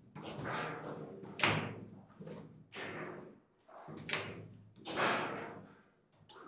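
Table football (foosball) table in play: a series of hard knocks and bangs at irregular intervals as the ball and players' rods strike, each with a brief ring after it, the loudest about a second and a half in.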